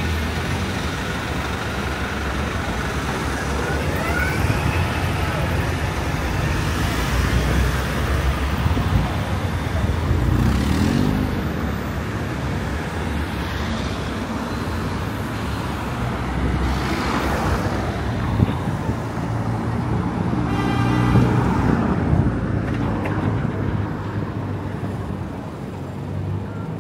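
Busy city street traffic: a continuous rumble of engines and tyres, with several vehicles passing close, one after another.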